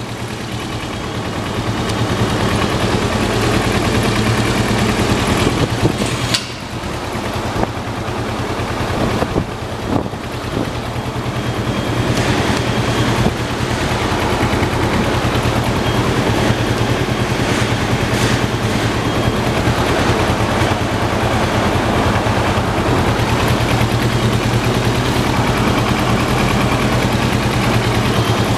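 2007 Kawasaki Ninja 650R's parallel-twin engine running steadily at idle.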